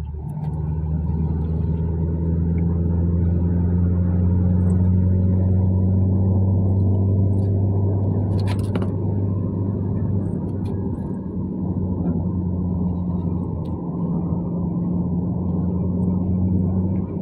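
Steady low drone of a moving car's engine and road noise heard from inside the cabin, with a brief click about eight and a half seconds in.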